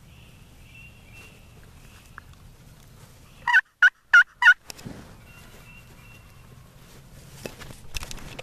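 A wild turkey tom gobbling once at close range: one loud, rapid rattling call of about four quick warbling pulses lasting about a second. Faint songbird chirps sound in the background, and there is brief rustling near the end.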